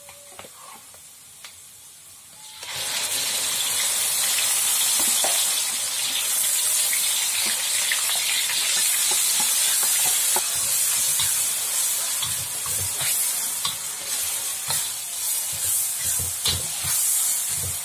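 Ground chili spice paste frying in hot oil in a steel wok: a faint sizzle that jumps to a loud, steady sizzle about two and a half seconds in as the paste goes in. In the second half the paste is stirred, a spatula scraping and clicking against the wok.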